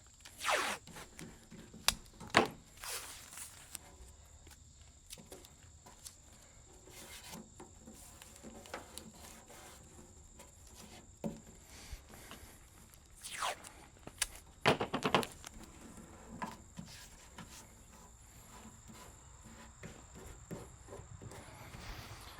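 Tape being ripped off a roll several times in short rasping pulls, with light clicks and rubbing from handling the tape against the car.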